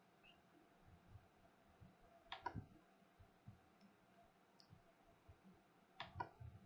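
Near silence: faint room tone with a short faint click twice, about two and a half seconds in and again near the end.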